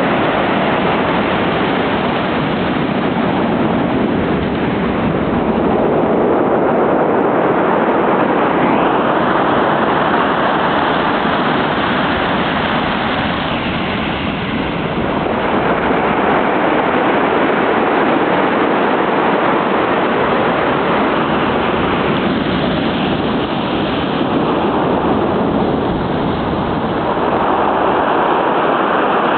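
Ocean surf breaking on the shore, a continuous loud wash of waves that swells and eases slowly.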